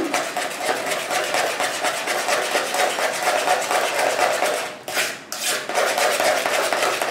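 Cake batter being beaten by hand with a spoon in a plastic mixing bowl, creamed butter and sugar with beaten eggs: a rapid, rhythmic scraping and slapping of the spoon against the bowl. There is a brief break about five seconds in.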